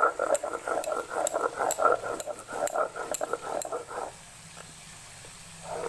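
Stone grinding roller rubbed back and forth over a grooved stone slab (shil-nora), grinding wet spice paste in a steady rhythm of about two strokes a second. The grinding stops about four seconds in, leaving only a faint low hum, and starts again right at the end.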